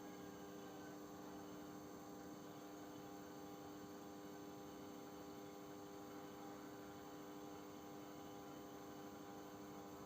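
Panasonic NN-GD577M microwave oven running a heating cycle with a faint steady hum, staying on without cutting out.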